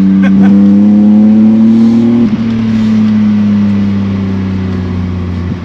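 BMW E30's swapped M52B28 2.8-litre inline-six, breathing through a custom stainless exhaust with two catalysts and two silencers. The revs climb under acceleration for about two seconds, dip briefly, then the engine note holds and slowly falls. It is heard from the cabin with the side window open.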